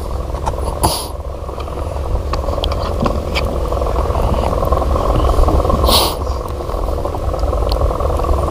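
Small fishing boat's engine running steadily, a low rumble, with two brief sharp clicks, about a second in and about six seconds in.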